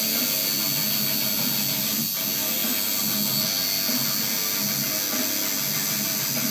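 Electric tattoo machine buzzing steadily as it works the ink into the skin of the upper arm, with music playing in the background.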